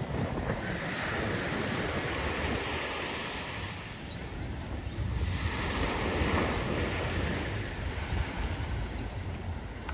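Surf washing onto a beach, the wash swelling twice, about a second in and again from about five to seven seconds, with wind rumbling on the microphone.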